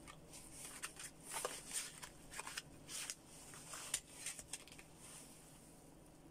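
Plastic cards sliding and clicking into the slots of a plastic accordion-style card holder, a string of faint scrapes and ticks that dies away near the end.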